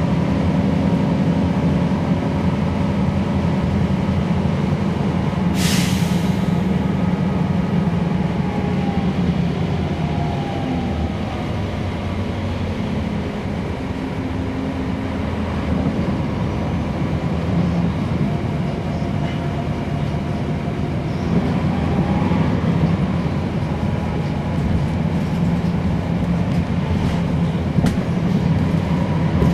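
Cabin sound of a 2012 NABI 416.15 transit bus under way, its Cummins ISL9 diesel running with a whine that rises and falls in pitch as the bus gathers and sheds speed. A short, sharp hiss about six seconds in.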